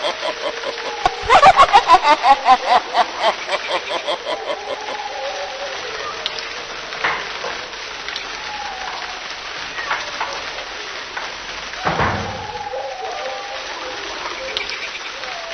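Horror sound-effect ambience. It opens with a fast, pulsing, laugh-like call for a few seconds, then gives way to a steady rain-like hiss with scattered creaks and clicks, and one heavy thud about twelve seconds in.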